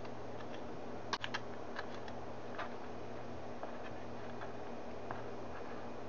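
Kitchen knife tapping on a plastic cutting board while dicing a pepper: scattered sharp taps, with a quick run of three about a second in.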